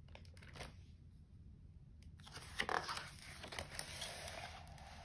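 Paper pages of a hardcover picture book being turned by hand: faint rustling and brushing of paper, in a few short bursts, loudest about two and a half seconds in.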